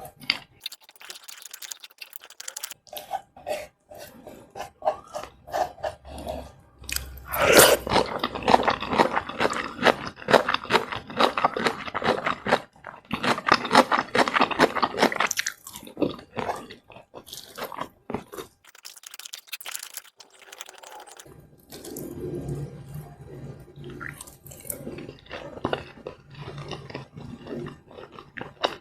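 Close-miked mouth sounds of eating: crunching and chewing food in repeated runs, loudest and crispest in the middle, then softer wetter chewing near the end.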